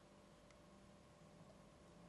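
Near silence: faint room tone with a steady low hum and a couple of very faint ticks.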